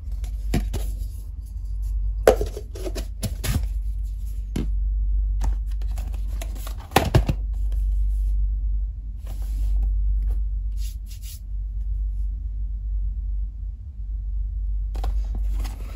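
Perfume packaging being handled: scattered clicks, knocks and cardboard rustles from the boxes and bottle, over a steady low hum.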